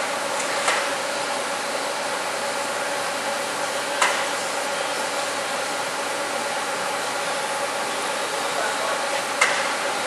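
Steady whirring noise with a steady hum from the powered-up DMG DMU 50 machining center while its Siemens control boots, broken by three sharp clicks: about a second in, about four seconds in, and near the end.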